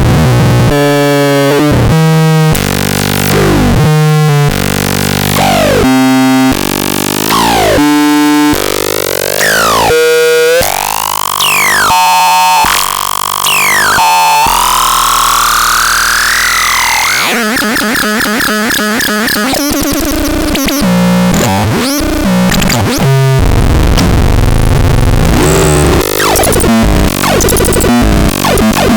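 Synthesizer tones from the Talpalax: a string of short pitched notes, many bending downward, and then a long rising sweep. After that it changes to a dense, buzzing, noisy texture with a fast rhythm.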